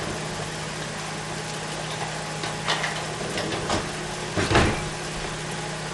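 Kitchen handling noises: a few short knocks and clatters, the loudest a thump about four and a half seconds in, over a steady low hum.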